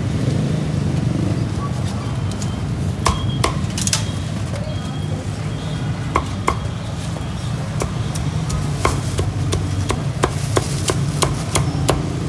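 Cleaver chopping crisp-skinned roast pork on a thick wooden chopping block: sharp knocks, a few scattered at first, then a quick run of chops near the end. A steady low hum sits underneath.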